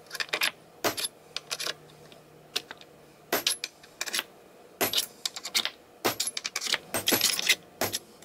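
Claw hammer tapping a 3/16-inch steel punch set in the screw holes of a linear-rail roller block, marking hole locations in the wood below: a series of sharp metallic taps, often two or three in quick succession.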